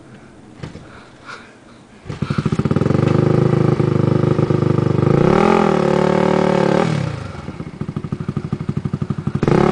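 ATV engine revving hard under load as it climbs a rocky hill, starting about two seconds in. It eases off to a lower, pulsing run about seven seconds in, then revs up again near the end.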